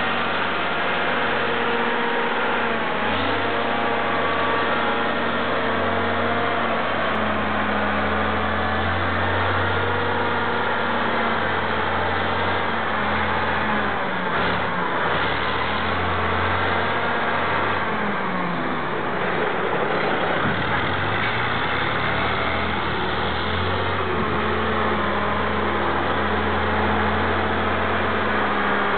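Caterpillar 631 water wagon's diesel engine running loud and steady as the machine drives, its engine speed dipping and rising around the middle before settling again.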